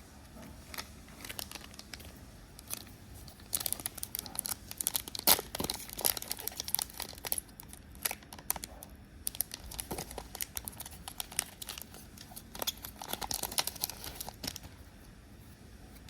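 Foil booster pack of Pokémon cards being torn open, its wrapper crinkling in irregular bursts of crackling that are loudest about five seconds in.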